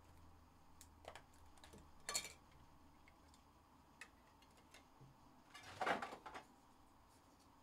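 Faint clicks and rustling of trading cards in plastic sleeves and a rigid plastic top loader being handled, with a brief rustle about two seconds in and a longer, louder rustle near the end.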